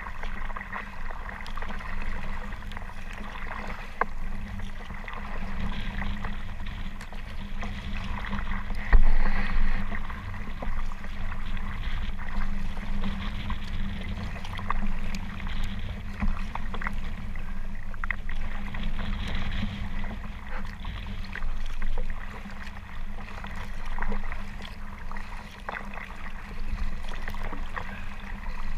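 Kayak being paddled through choppy water: continuous splashing and waves slapping against the hull, with scattered sharp splashes and knocks.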